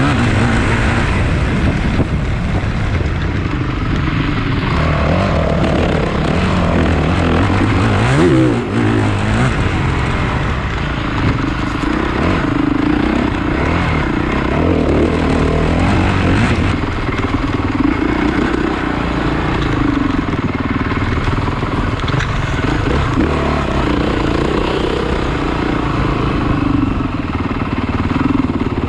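Motocross dirt bikes racing on the track, their engines revving up and down over and over in a continuous loud run of engine noise.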